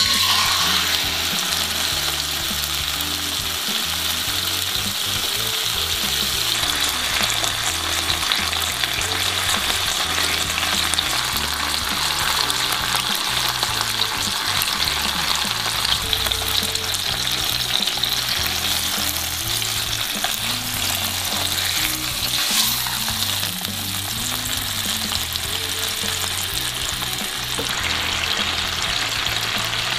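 Marinated chicken thigh frying in hot oil in a nonstick pan: a steady sizzle that starts suddenly as the meat is laid in.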